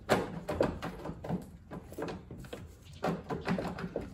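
A car's taillight assembly being pulled and wiggled out of the rear body panel: irregular knocks, clunks and rattles of the housing against the body, with a sharp knock right at the start.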